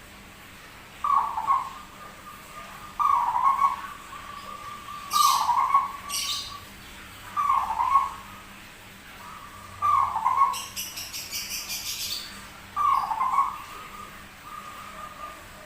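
Perkutut (zebra dove) cooing in short phrases, six times about two seconds apart, in the unusual voice that makes this bird rare. Briefer, higher rattling sounds come between the coos twice, about five seconds in and again around the tenth to twelfth second.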